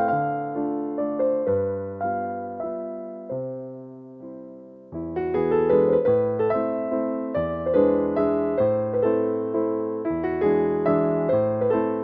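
Slow, gentle keyboard music of struck notes and chords that fade after each strike, sparser and softer for the first few seconds, then fuller chords coming in about five seconds in.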